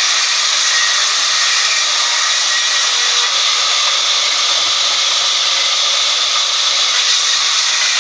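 Sawmill band saw ripping a wooden log slab lengthwise: a loud, steady hiss of the blade cutting through the wood.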